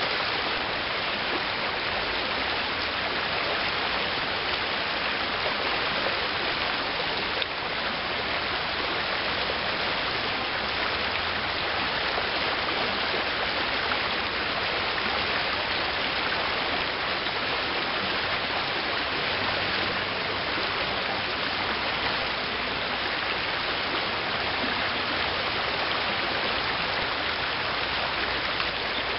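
Water running through a shallow river riffle: a steady, even rush with no breaks.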